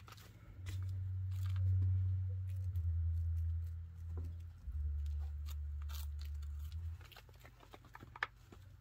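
A low rumble from an unseen source, under scattered small clicks and crunches from a chinchilla nibbling at its exercise wheel.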